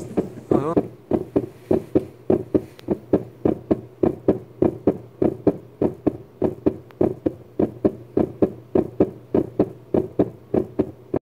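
Background music with a steady percussive beat of about four strikes a second over a low sustained tone, cutting off suddenly near the end.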